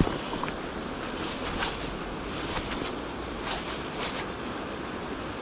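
Shallow river running fast over a stony riffle: a steady rush of water, with a few faint clicks through it.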